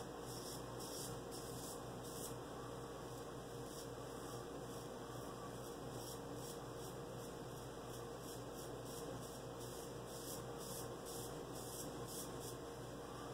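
An 1830s George & Sons 7/8 straight razor scraping stubble through shaving lather on the neck in a run of short, quiet strokes, shaving against the grain. A steady low hum runs underneath.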